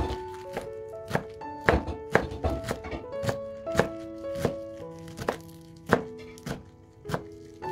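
A kitchen knife chopping fresh basil leaves on a wooden cutting board, with irregular sharp knocks about two a second, over background music with a simple melody.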